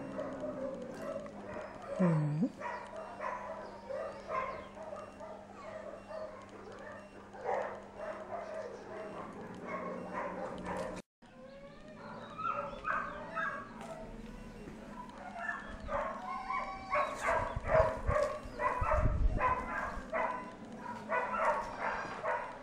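Dogs barking and yipping on and off, with the odd whine. The calls come thickest in the last several seconds, and the sound cuts out for a moment about halfway through.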